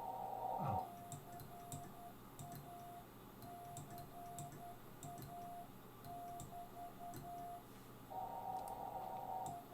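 Morse code (CW) on a ham radio transceiver: a single steady tone keyed on and off in dots and dashes. Brief rushes of hiss, narrowed by the receiver's filter around the tone, come in at the start and again near the end, with faint clicks.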